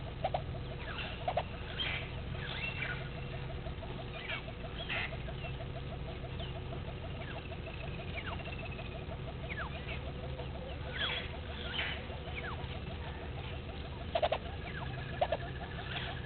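Outdoor bush soundscape: wild birds give scattered short chirps and a couple of thin trills over a steady, fast ticking chorus. A few sharper, louder calls stand out about a second in and again near the end.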